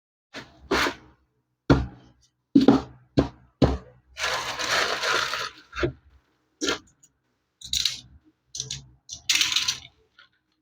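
Toy packaging being handled and opened: a series of sharp clicks and knocks, with a rustle lasting about a second and a half about four seconds in.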